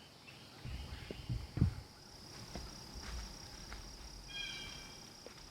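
Steady high drone of insects, such as crickets, in the woods, with a few low thumps in the first two seconds and around three seconds in. About four seconds in comes a short pitched animal call.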